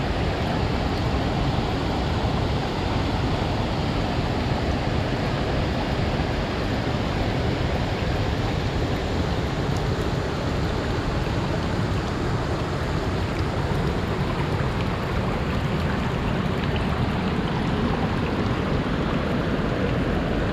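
Waterfall rushing, a steady unbroken water noise with most of its weight in the low end.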